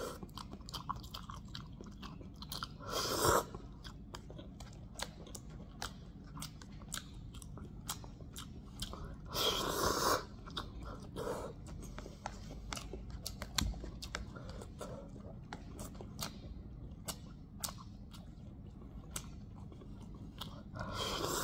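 A person eating instant noodles: chewing with many small wet mouth clicks, broken by a few louder slurps, the longest about ten seconds in as broth is sipped from the cup.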